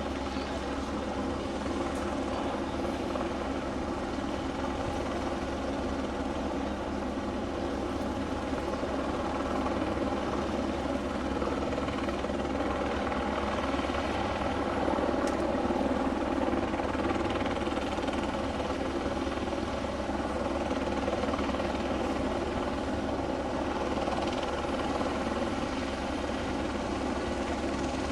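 Police helicopter's rotor and engine running steadily, an even, unbroken drone with no rise or fall.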